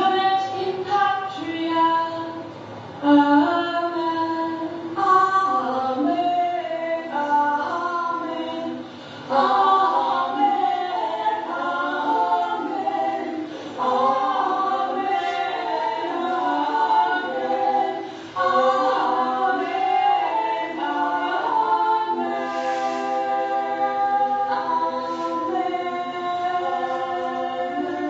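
Several women's voices singing together unaccompanied in slow, held phrases, growing into overlapping parts from about ten seconds in. The singing is heard through the playback of a screened stage recording.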